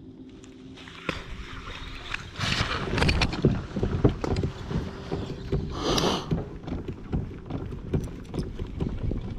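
Gear knocking and rubbing against a fishing kayak, with many sharp clicks and knocks over wind rumble on the microphone; it starts about a second in. A short rushing swish comes about six seconds in.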